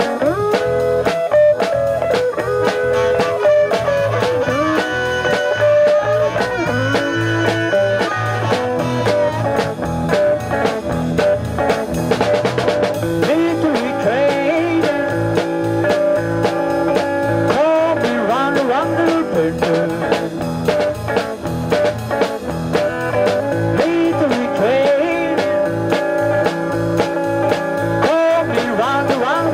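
Live blues band playing: a harmonica, cupped with a microphone in the hands, plays melodic lines with bending notes over electric guitar, bass guitar and drums.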